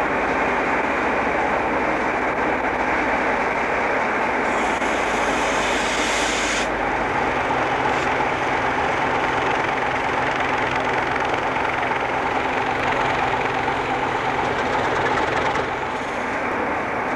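Railway snowblower and diesel locomotive engines running: a steady, dense noise with little change in level, and a brief hiss about five seconds in.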